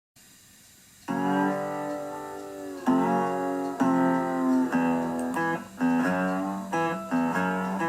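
Acoustic guitar music begins about a second in, plucked and strummed chords ringing one after another.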